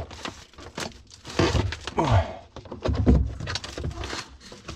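Irregular clicks, knocks and cracking sounds from the refrigerator's plastic back panel and the frozen foam behind it being worked loose, with a couple of short low vocal grunts.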